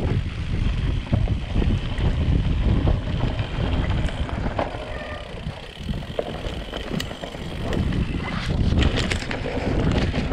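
Mountain bike descending dirt forest singletrack: tyres rolling over soil and roots with the bike rattling and knocking over bumps, under steady wind rumble on the camera microphone.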